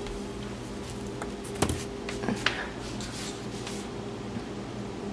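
A few light knocks and clicks, the loudest about one and a half seconds in, over a steady low hum.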